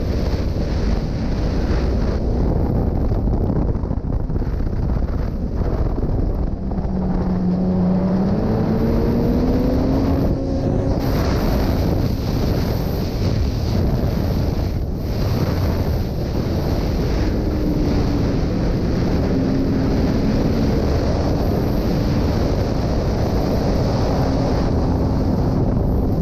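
Racing snowmobile's engine running at speed under heavy wind buffeting the microphone. Its pitch climbs from about seven to eleven seconds in as the sled accelerates down a straight, then holds steady.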